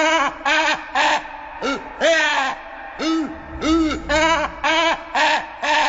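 Dinosaur call sound effect: a rapid series of short hooting calls, about two a second, each rising and falling in pitch, with a low rumble under them about halfway through.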